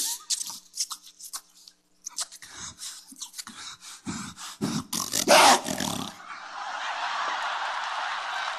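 Beatboxing: quick mouth-made clicks, pops and effects for about six seconds, ending with the loudest burst about five seconds in. Audience applause follows.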